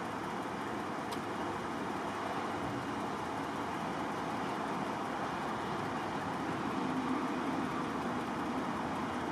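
Steady highway traffic noise, an even rushing hiss with no single vehicle standing out.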